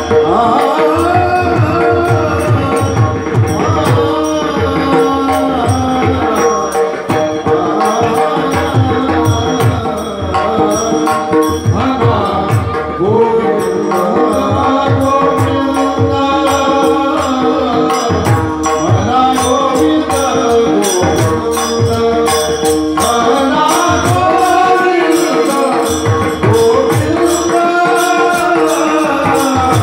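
Marathi devotional kirtan tune sung by men's voices with harmonium, mridang drumming and small hand cymbals (taal) keeping a fast, steady beat.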